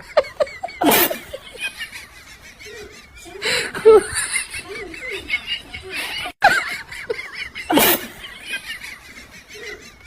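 People laughing in bursts, with the loudest outbursts about a second in, around four seconds in, and near eight seconds.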